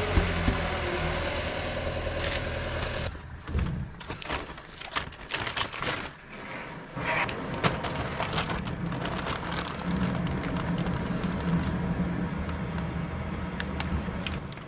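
Plastic bags crinkling and rustling as they are handled, with sharp crackles strongest a few seconds in. Under it runs a steady low mechanical hum.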